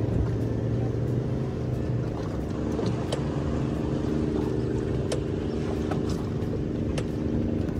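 Boat's outboard motor running steadily under a haze of wind and water noise, with a few short knocks.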